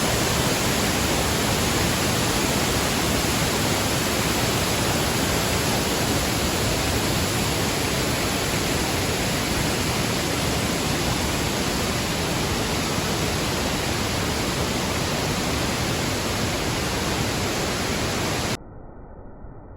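Waterfall: a loud, steady rush of falling water that cuts off suddenly near the end to a much quieter hiss.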